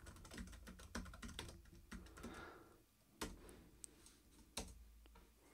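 Faint typing on a computer keyboard: a quick run of keystrokes, then a few separate strokes, the loudest about four and a half seconds in.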